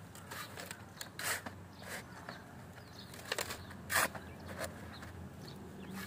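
A steel shovel scraping and crunching into a pile of damp sand, loads tipped into a metal wheelbarrow: a series of short strokes, the loudest about four seconds in.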